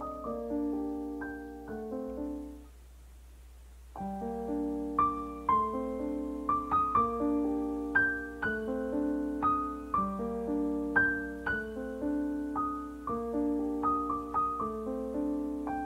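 Background piano music: a gentle, steady stream of notes that breaks off for about a second roughly three seconds in, then picks up again.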